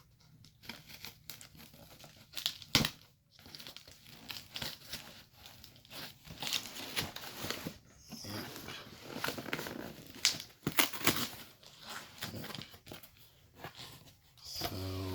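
A cardboard shipping box being opened by hand: packing tape tearing, packing material crinkling and cardboard flaps scraping, with irregular sharp crackles and rustles throughout.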